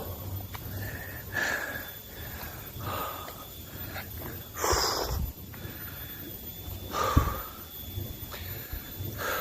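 A hiker breathing heavily on the trail, one noisy breath about every one and a half to two seconds, with a sharper, louder breath near the middle.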